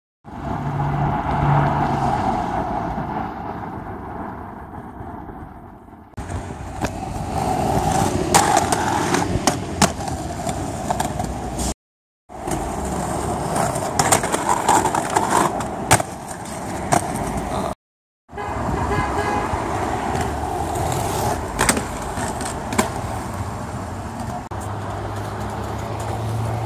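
Aggressive inline skates rolling and grinding on concrete and stone ledges, with many sharp clacks from landings and frames striking edges, and street traffic passing. The sound breaks off to silence twice partway through.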